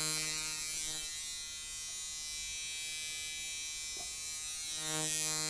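Rebuilt 1998 Micky Sharpz Microdial coil tattoo machine, fitted with Wesley Verity coils and set up as a liner on 5.5 volts, buzzing steadily. Its buzz goes thinner about a second in and comes back fuller near the end.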